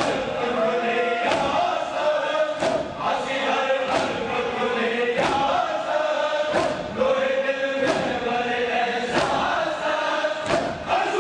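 Crowd of men chanting a noha in unison during matam, with their hands striking their chests together in a slow, even beat of about one strike every 1.3 seconds.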